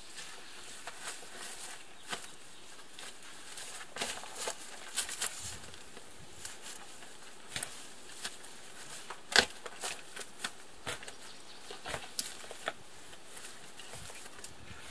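Shovel chopping and scraping into sod and soil, a series of irregular sharp strikes, the loudest about nine seconds in.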